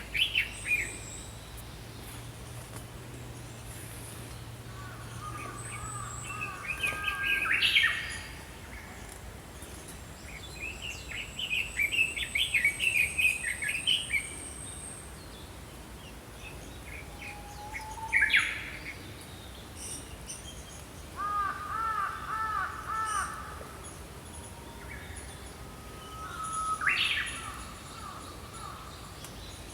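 Small songbirds singing and chirping in short bouts a few seconds apart, quick rippling notes in one bout and repeated arched notes in another. A thin, very high whistle is held for several seconds partway through.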